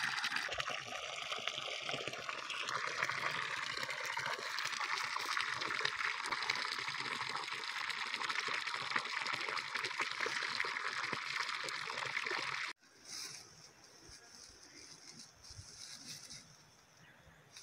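Water pouring from a pipe and splashing into a pond, a steady rushing splash that cuts off suddenly about 13 seconds in. After that, only a much quieter outdoor background with faint high chirps.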